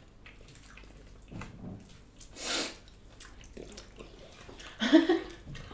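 Eating sounds at a table: small handling and mouth noises, a short breathy burst about two and a half seconds in, and a brief voiced sound near the end, the loudest thing heard.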